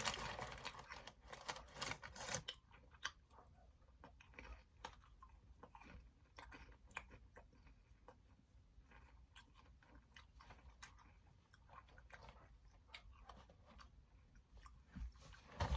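A person chewing and crunching baked Cheez-It crackers close to the mic. The crunching is louder in the first couple of seconds, then fainter, scattered crunches.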